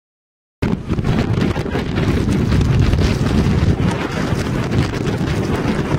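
Hurricane-force wind buffeting the microphone, a loud, steady rumble with gusty crackle, cutting in suddenly about half a second in after dead silence.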